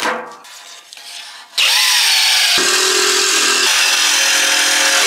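Light handling and scraping sounds, then about a second and a half in a jigsaw starts up and runs steadily, its blade cutting a fan opening out of thin aluminium sheet.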